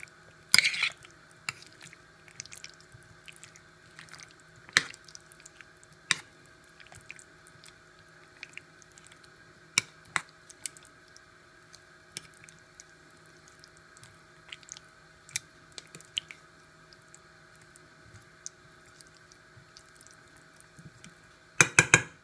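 Wet squishing of a creamy cream-and-cheese sauce being stirred and spread over sliced carrots in a baking dish. Scattered light clicks and knocks of the utensil against the dish sound over a faint steady hum, with a louder cluster of knocks near the end.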